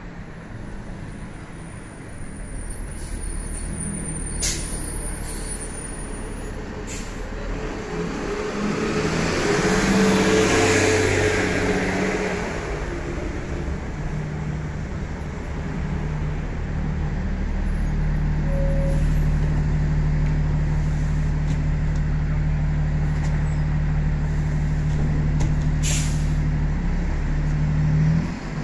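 Gillig Low Floor 40-foot transit bus pulling in to a stop. Engine noise and a rush of air build to a peak about ten seconds in, then the engine idles with a steady low hum, with a few short air-brake hisses.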